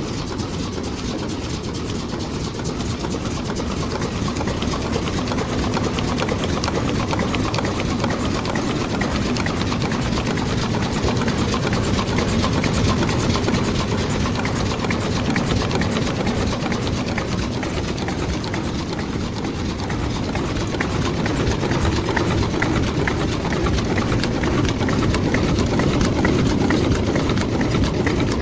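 Automatic eye drop bottle cartoning machine running: a steady, dense mechanical clatter and hum from its moving parts, growing a little louder after the first few seconds.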